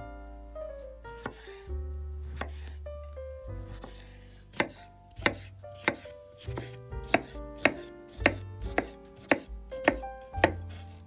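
Chef's knife dicing pickled cucumbers on a wooden cutting board, the blade knocking sharply on the board about twice a second from about four seconds in, over background music.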